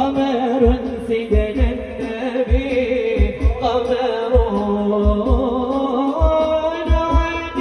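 Sholawat, Islamic devotional singing, with a low drum beat thumping about twice a second.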